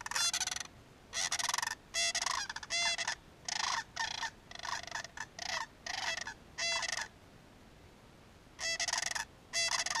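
Sandhill cranes giving rolling, rattling bugle calls: a quick string of loud calls, a pause of about a second and a half, then two more calls near the end.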